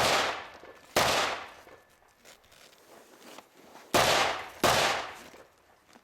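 Four gunshots in two pairs: two about a second apart at the start, then two more about three-quarters of a second apart near 4 seconds in, each with a short fading echo.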